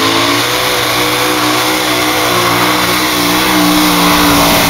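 Five-engine modified pulling tractor running flat out under load, a loud, steady high-revving drone whose pitch wavers slightly as it pulls the sled.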